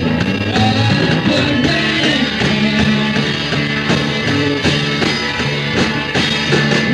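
Live rock band playing, dense and loud, with a steady drum beat under sustained guitar and bass lines.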